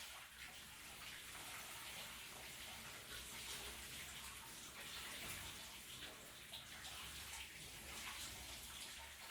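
Shower running: water spraying and splashing, a faint, uneven hiss.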